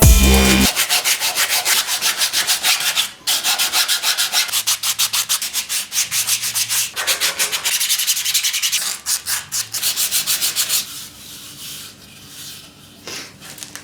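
Rapid back-and-forth rubbing strokes, about four a second, with a short break near the start. They stop about eleven seconds in, leaving fainter, scattered rubbing.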